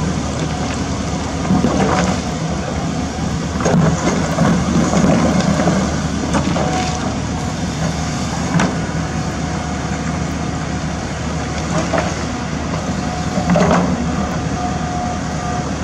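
Diesel engines of a dump truck and a CAT 320D2 hydraulic excavator running steadily, with several sharp clunks of the excavator's bucket working in broken rock.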